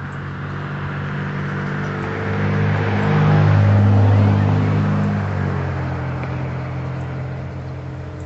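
A motor engine passing by: a steady low engine hum under a rushing hiss that swells to its loudest about four seconds in, then fades away again.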